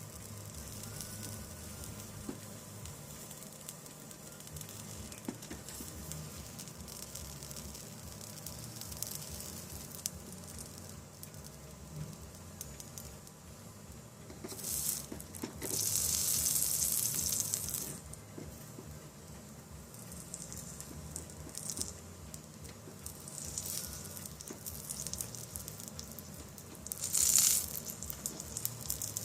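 Soldering iron sizzling as it melts solder and flux on the lead joints of a stained glass lamp, in several short hissing bursts: the longest lasts about two seconds midway, and a sharp one comes near the end.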